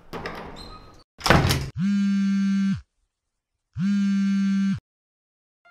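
Shuffling and rustling, then a loud thud about a second in, followed by two identical harsh electronic buzzes, each about a second long and a second apart, cut off cleanly.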